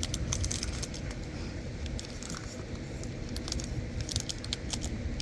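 Dense, irregular crackling and rustling of guinea pigs rummaging in home-made sock toys (Sockos), with many quick clicks and snaps like a crackling fire.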